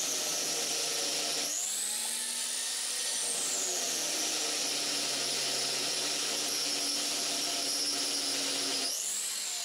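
Angle grinder with a sanding disc running against the face of an exhaust V-band flange, grinding it flat. The flange warped during welding. The motor whine rises and falls in pitch about a second and a half in and again near the end.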